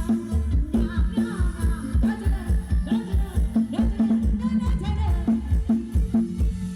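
Live stage band music with a steady, fast drum beat under a wavering melody line.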